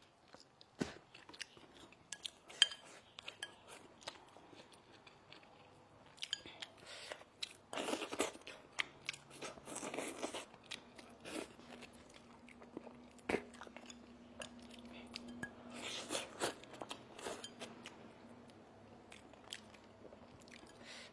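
A person eating close to the microphone: irregular crunchy bites, chewing and small mouth clicks, with a few louder bursts of crunching partway through.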